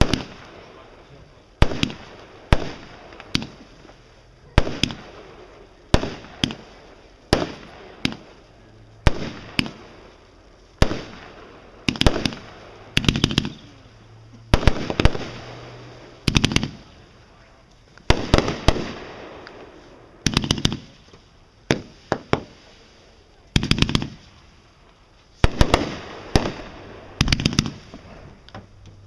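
Fireworks going off in a long run of sharp bangs, about one a second, some in quick doubles and triples and several followed by a trailing crackle and rumble.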